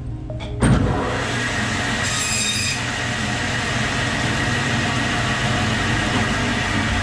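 Meat-cutting bandsaw running and cutting through a goat's head, a harsh steady machine noise that comes in sharply about half a second in. There is a brief higher squeal about two seconds in.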